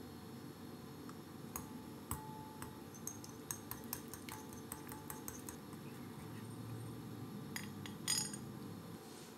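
A small wire whisk beating egg yolks in a ceramic bowl, its metal wires clinking irregularly against the bowl's side, with a louder cluster of clinks near the end.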